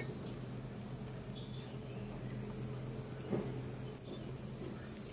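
Steady high-pitched drone of insects, over a low steady hum, with one soft knock a little after three seconds in.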